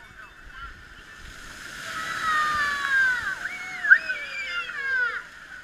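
A young child crying close by: a few long wails that waver and fall in pitch, loudest about four seconds in, over a hiss of splashing water.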